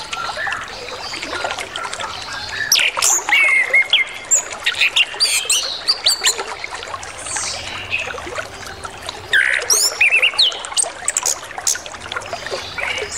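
Chestnut-capped thrush singing a varied song packed with mimicked calls: quick whistles, chirps and sharp notes one after another, over the steady rush of flowing water.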